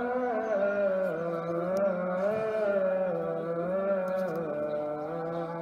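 Slow outro music: a smoothly gliding, chant-like melody over a held low drone note that shifts pitch a few times.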